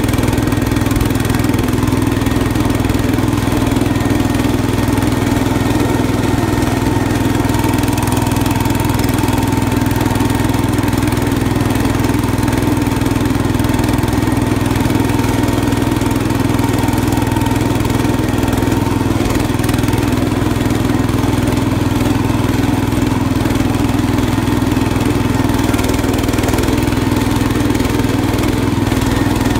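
Cub Cadet garden tractor engine running steadily while the tractor is driven, still fresh from a cold start.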